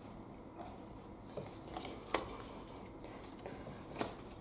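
Trading cards being handled and flipped through by hand: a few light clicks and snaps, the sharpest about two seconds in and another near the end.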